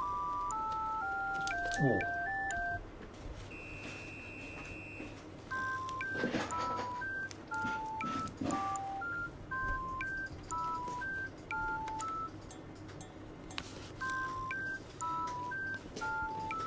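Background music: a simple melody of pure, beep-like electronic tones, one note at a time in a bouncy repeating pattern. A brief falling sweep sounds about two seconds in, and a couple of short swishes come later.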